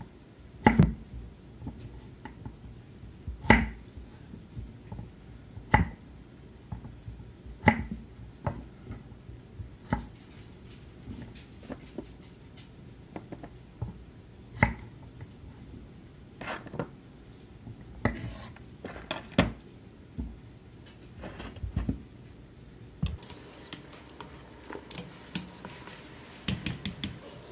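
Chef's knife cutting through rings of raw squash and knocking on a wooden cutting board, one sharp chop about every two seconds. Near the end come quicker clinks and rattles of a wire blanching basket being lifted in a metal stock pot.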